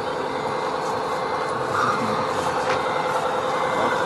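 1/14-scale RC tipper trucks driving slowly over a dirt course: a steady mechanical drone with a constant whine running through it.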